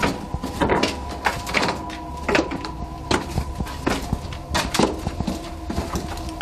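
Footsteps and scuffs on stone steps and the cellar floor: an irregular run of knocks and shuffles as several people come down into the basement, over a faint steady whine.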